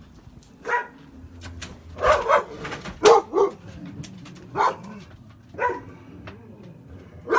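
Dog barking in short, separate barks at irregular intervals, the loudest pair about three seconds in.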